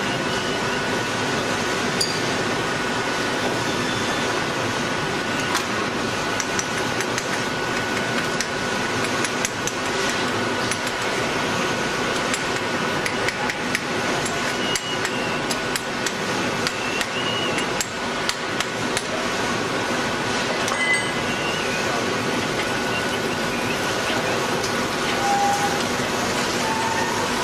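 Hot spring-coiling machine running as a red-hot steel bar winds onto the mandrel: a steady machine noise with a constant high tone and frequent sharp metallic clicks and knocks.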